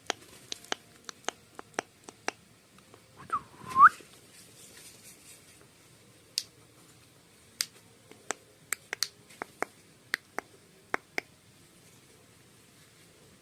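A pet parakeet gives one short whistle that dips and comes back up in pitch about three seconds in, amid scattered sharp clicks and taps.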